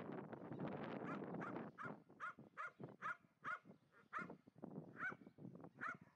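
Kelpie pup giving short, high-pitched yapping barks, two or three a second, as it pushes into a mob of sheep. A scuffling noise fills the first second.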